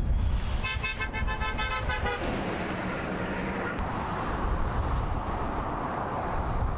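A car horn honks in a quick run of toots for about a second and a half: a passing driver honking in support of roadside protesters. After it comes steady road noise of traffic going by.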